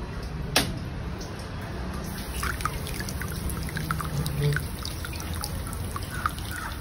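A sharp switch click about half a second in, then a 10-head ultrasonic mist maker sitting in water starts up: from about two seconds water droplets spatter and drip irregularly as the ceramic heads churn the surface, over a steady low hum.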